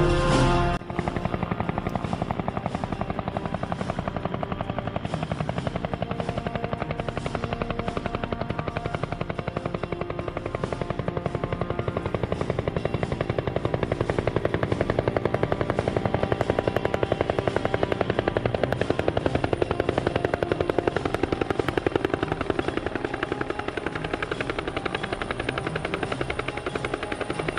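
Two-bladed Bell Huey-type helicopter hovering, its main rotor beating in a fast, even chop. A music sting cuts off within the first second.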